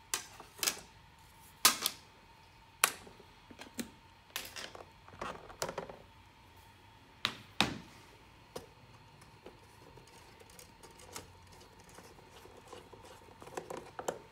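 A string of sharp clicks and knocks, most of them in the first eight seconds and sparser after: a sunshade being unclipped from a hard-case drone ground station and set down, and the case's whip antennas being unscrewed.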